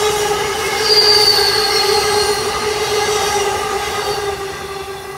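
Amtrak passenger train rolling past and drawing away, with a steady ringing whine from the wheels and rails and a brief high squeal about a second in. The sound fades near the end as the last car leaves.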